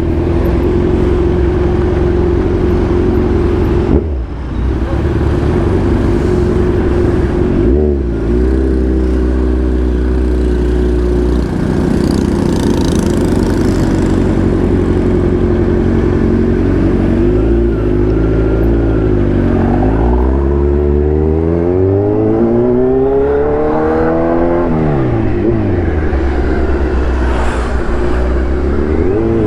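Kawasaki Z1000's inline-four engine running under way, holding a steady pitch while cruising, then revving up and falling back several times in the last several seconds as the rider accelerates and shifts.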